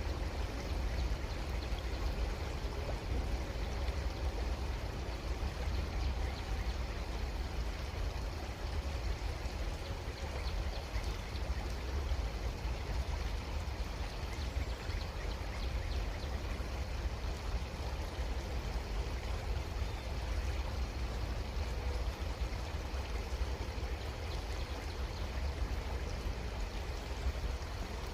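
Creek water flowing in a steady, even rush with a trickle.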